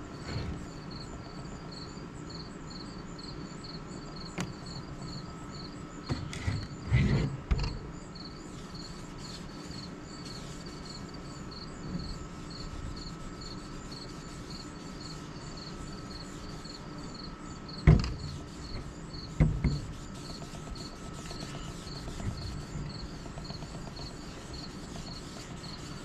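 Crickets chirping in a steady, even rhythm, with a few dull knocks as the hatchet is handled on a table, the loudest about eighteen seconds in.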